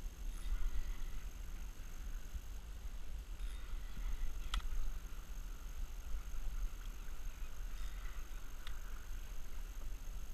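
Wind buffeting the camera's microphone as a steady low rumble, with water lapping against a kayak hull on a choppy sea. Two sharp clicks stand out, about four and a half seconds in and again near nine seconds.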